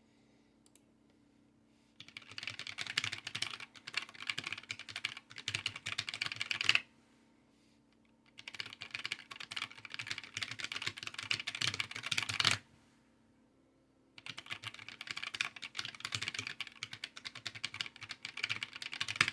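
Small handwired keyboard being typed on fast in three bursts of a few seconds each, with short pauses between. The first two bursts end on a louder key strike.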